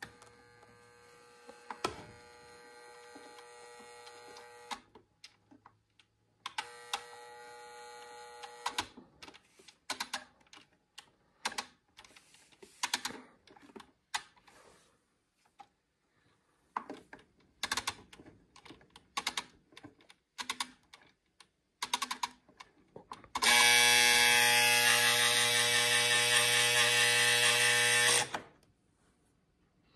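Clock knobs on a 1953 Zenith clock radio being turned, making clicks and ratchety ticks, while the clock's alarm buzzer sounds three times. It buzzes faintly at first, briefly louder after about six seconds, and loudest for about five seconds near the end before cutting off.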